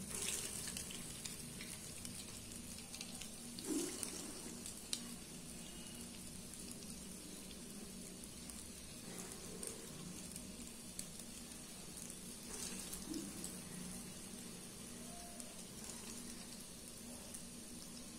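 Urad dal batter balls deep-frying in hot oil: a steady, low sizzle and bubbling, with a few brief louder moments as more batter is dropped in.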